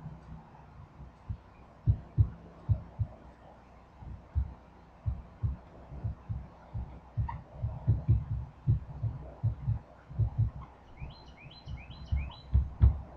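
Dry-erase marker writing on a whiteboard. The strokes make irregular dull knocks, and there are a few short squeaks from the marker tip near the end.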